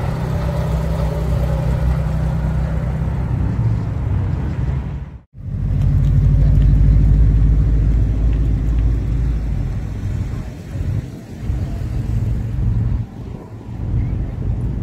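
A classic BMW coupe's engine running as the car rolls slowly past, with a steady low hum. About five seconds in, the sound cuts off abruptly and gives way to a louder, deeper car engine rumble that swells, then rises and falls.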